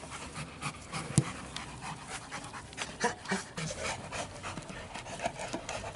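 Rottweilers panting while they gnaw and tug at an old car tyre, with scattered clicks and scrapes of teeth on the rubber and one sharp knock about a second in.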